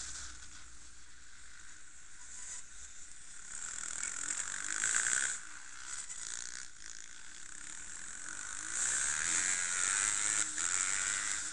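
Onboard sound of an enduro motorcycle riding a dirt track: a continuous rattling clatter and hiss, with the engine faintly rising and falling in revs beneath it. The noise swells louder near the end.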